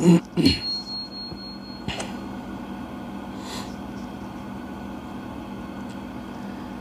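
Steady whir of a hot-air rework gun's blower as a new charging IC is heated onto an iPhone logic board, under a low hum. A brief voice sound opens it, and a thin high tone sounds for about a second and a half near the start.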